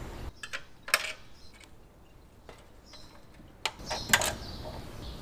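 A few sharp metallic clicks and clinks of a wrench and parts being worked on a small motorcycle engine and its exhaust. The loudest come about a second in and just before the end.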